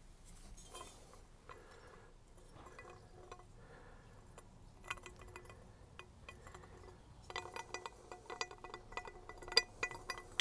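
Metal exhaust pipe clinking and ringing lightly as it is handled and pushed into place at the joint. Scattered small clinks thicken into a quick run of them in the last few seconds.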